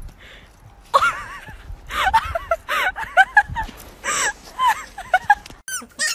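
A dog whining and yelping in many short, high cries that rise and fall, starting about a second in. Near the end a puppy's higher-pitched whines take over.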